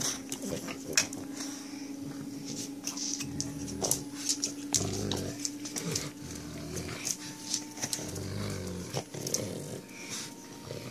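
Dogs playing tug-of-war over a rope toy, growling in short low bursts (about three) amid snuffling and sharp clicks and scuffles of the tussle. The growls are play growls, not aggression.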